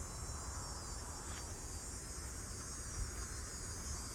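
Cicadas singing in the trees: a steady, unbroken high-pitched buzz.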